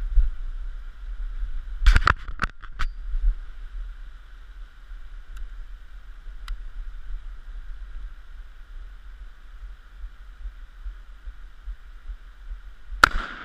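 Steady low rumble and hiss on a GoPro's microphone outdoors, broken by a cluster of sharp cracks about two seconds in and a single loud crack near the end.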